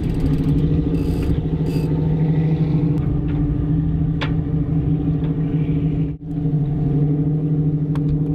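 A boat engine running steadily at idle, a constant low hum, with a couple of light knocks a few seconds in. The hum breaks off very briefly about six seconds in.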